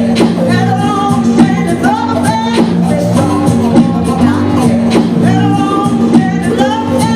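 Live band playing a song with a lead singer, over steady low notes and a regular drum beat.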